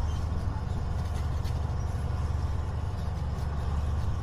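A steady low rumble with a faint hiss over it.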